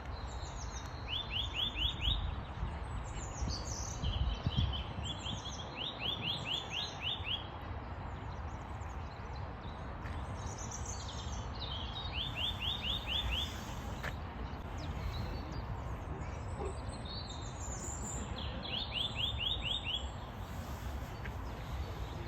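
Eurasian nuthatch singing: short, fast runs of repeated down-slurred whistles, four bursts spread through the stretch, with other high bird calls scattered around them over a steady low rumble.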